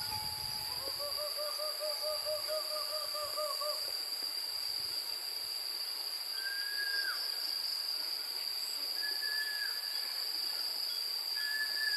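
Insects droning steadily at a high pitch, with a bird's wavering, trilled call lasting about three seconds starting about a second in, and three short whistled notes that drop at the end later on.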